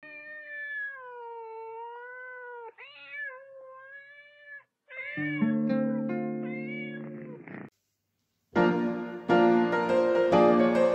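A long, drawn-out cat meow with a wavering pitch lasting about four and a half seconds, then shorter meows over a piano chord. After a brief silence, upbeat jazz piano music starts.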